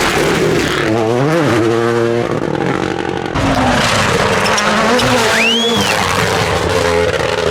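Rally cars at full speed on a stage, their engines revving hard and dropping between gearshifts. The sound cuts abruptly to another pass about three seconds in. A short whistle rises and falls about five and a half seconds in.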